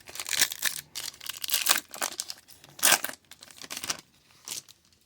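A 2022 Topps Series 1 baseball pack's foil wrapper being torn open and crinkled: a run of irregular rustles, loudest about three seconds in, that fade out near the end.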